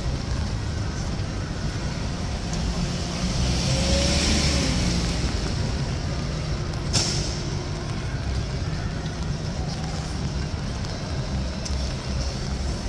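Street traffic noise with a low rumble throughout; a vehicle passes about four seconds in with a swelling hiss, and a single sharp click comes about seven seconds in.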